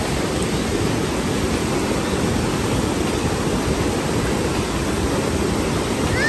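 Steady rushing noise of sea surf washing on a beach, with no distinct breaks or changes.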